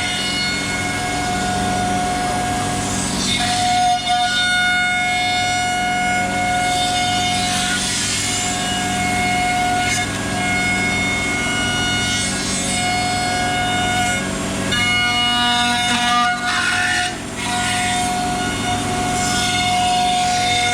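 CNC router cutting a wooden chair seat: a steady machine whine whose tones switch on and off every few seconds as the machine changes moves, with surges of rushing cutting noise now and then.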